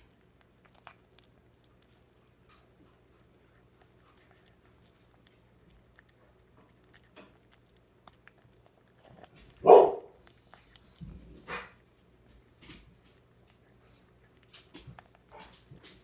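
Siamese cat eating diced raw meat off a china plate: faint, scattered small clicks and smacks of chewing and of the plate. About ten seconds in comes one brief loud sound, with a weaker one a moment later.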